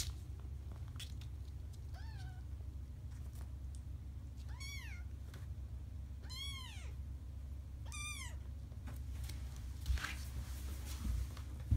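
Three-week-old kittens mewing: four short, high-pitched mews a second or two apart, each rising and then falling in pitch. A brief rustle and soft thump near the end.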